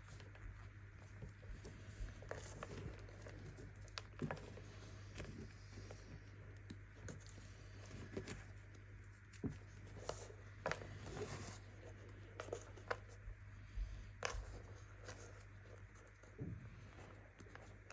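Baking soda being crushed: irregular soft crunches and crackles, a few sharper than the rest, over a steady low hum.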